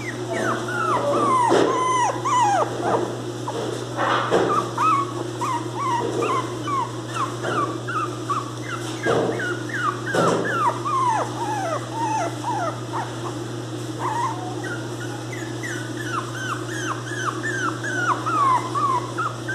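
Very young pinscher puppy whining and crying, a steady string of short cries that each fall in pitch, about two a second: the puppy is crying for its mother, away from the litter.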